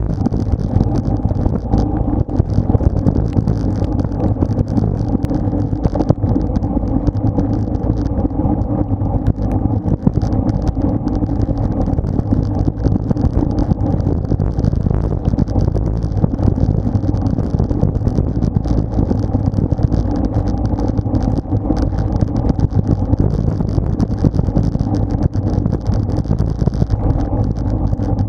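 Steady rush of wind and road noise on a bicycle-mounted action camera riding at speed.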